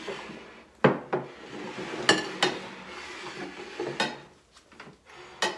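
Bowls and plates being slid and set down on a table as they are shuffled around, clinking and knocking about six times with short ringing.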